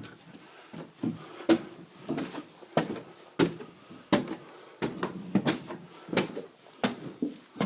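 Footsteps climbing a flight of stairs: a steady run of knocking treads, about three steps every two seconds.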